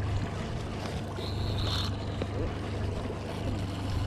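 Boat motor running steadily under wind and water noise, with a brief high tone a little over a second in.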